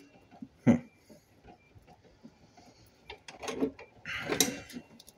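Light knocks and clicks of battery cells and wires being handled, with a sharper knock under a second in and a short rustling scrape with a knock about four seconds in.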